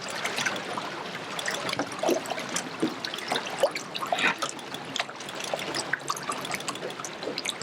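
Water splashing and trickling: an irregular patter of small splashes over a steady wash.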